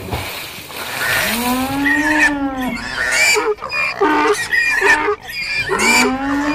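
A big water splash, then farm-animal cries: two long calls that rise and fall, with short honking squeals between them.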